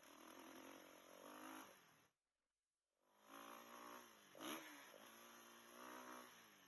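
A low, pitched mechanical drone, much like an engine, under a steady high-pitched hiss, recorded on a GoPro with a sound fault: about two seconds in the audio cuts out to dead silence for nearly a second, then fades back in. A brief louder dip in pitch comes about four and a half seconds in.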